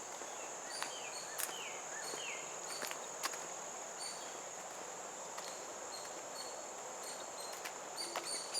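A bird giving short falling calls, several times, over a steady high-pitched insect trill.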